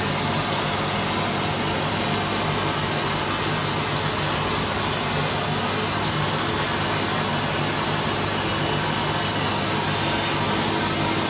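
DIY vapour (wet sand) blasting cabinet blasting a motorcycle crankcase: a steady hiss of the air-and-abrasive jet with a steady low hum underneath.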